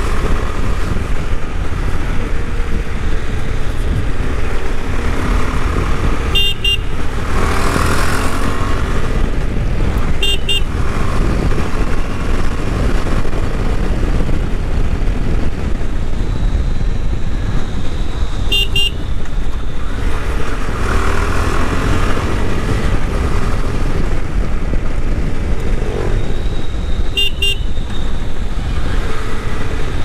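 KTM 390 Adventure's single-cylinder engine and exhaust running under way, its revs rising as it pulls away a couple of times. Short horn toots cut in four times.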